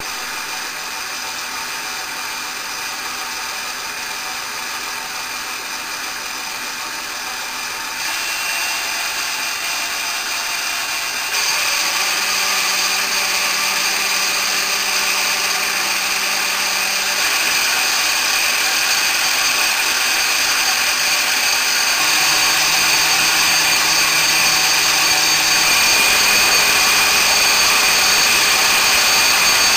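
Craftsman variable-speed wood lathe running with a wooden blank spinning on the spindle, a steady motor hum and whine. It gets louder in about five steps, its pitch shifting at each, as the speed is turned up.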